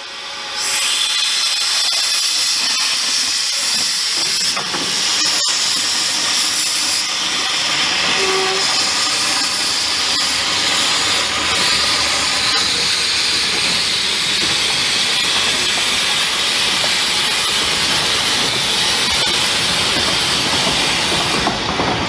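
Narrow-gauge steam locomotive letting off steam: a loud, steady hiss that comes up sharply about a second in and holds.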